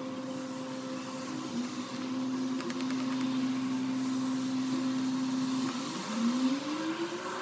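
A steady motor-like hum that holds its pitch, dips, then rises in pitch near the end. A few faint clicks come from the screwdriver working the laptop's base screws.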